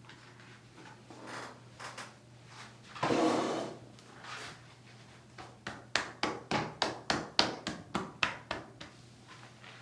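Massage hands working on the body: a brief rubbing swish, then a quick run of about a dozen sharp pats or slaps at roughly four a second, as in percussive massage strokes.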